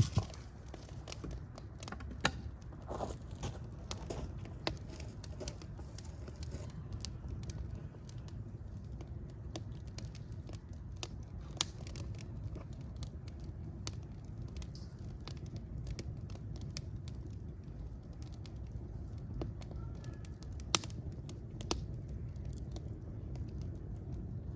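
Fire crackling and popping over a steady low rumble, with irregular sharp pops, a few of them much louder than the rest.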